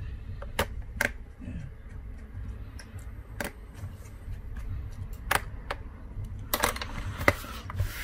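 Sharp clicks and taps of a small Phillips screwdriver on the bottom-cover screws and metal base of a Dell Inspiron 15 5000 laptop as the screws are tightened, one click every second or two, over a low steady hum. Near the end, scraping and rustling handling noise as the laptop is picked up.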